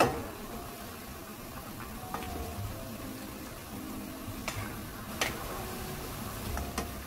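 A cooking utensil knocking against a pan while stirring sticky glazed lotus root slices: about five sharp clacks spread a second or two apart, the first the loudest.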